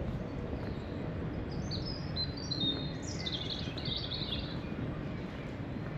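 A small songbird singing one phrase: a run of short high notes a little under two seconds in, then a louder, fast flourish sweeping downward about three seconds in. Under it is a steady low background noise.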